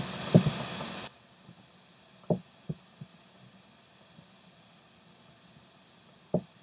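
A few short, soft knocks of gear bumping the plastic kayak as rod and live baitfish are handled: a couple right at the start, three more between two and three seconds in, and one near the end. A steady rushing background is there for the first second and then cuts off abruptly.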